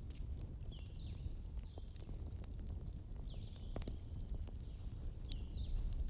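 Wood fire in a fireplace crackling: scattered sharp pops and snaps over a steady low rumble. A few short high whistles or chirps come through, one longer one around the middle.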